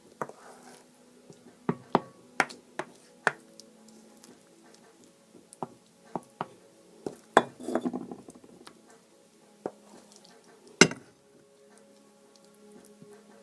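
A utensil clinking and scraping against a pan and a plate as the cooked aubergine-and-egg dish is served out: scattered sharp clinks, a stretch of scraping about halfway through, and one loud clink toward the end.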